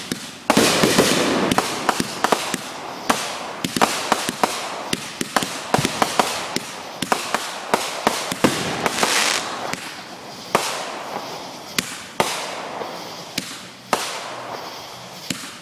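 Consumer fireworks launching and bursting in quick succession: a dense run of sharp bangs and pops, several a second, over a continuous hiss.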